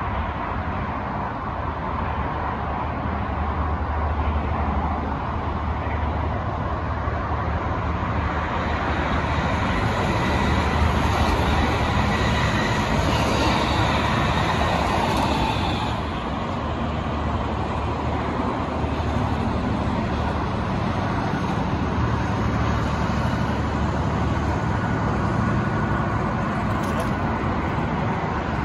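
Royal Mail Class 325 electric multiple unit running through on the far tracks, a steady rail rumble that swells to its loudest between about ten and sixteen seconds in and eases off sharply at sixteen seconds, then carries on more quietly.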